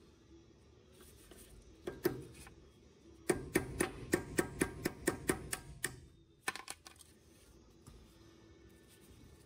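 Small metal-on-metal clicks and taps as a steel cotter pin is worked into the hole of an aircraft wheel's axle nut with pliers: a few clicks, then a quick run of about a dozen taps at roughly five a second, and two more near the end.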